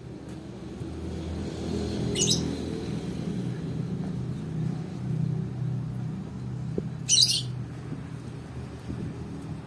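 A low, steady engine-like hum swells over the first couple of seconds and then holds. Two short, harsh high squawks, bird-like, cut through it about two seconds in and again about seven seconds in.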